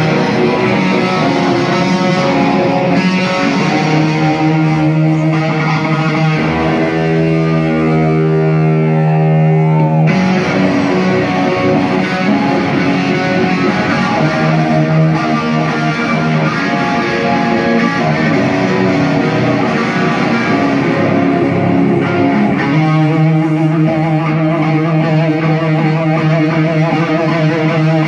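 Electric guitar solo played live, mostly long held notes. The sound changes abruptly about ten seconds in, and a low held note returns near the end.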